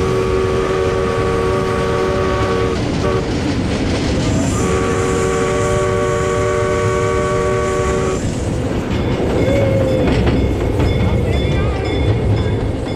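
The park ride train's horn blowing a chord of several notes: a long blast, a short toot, then a second long blast of about four seconds. After that, the train's steady running rumble.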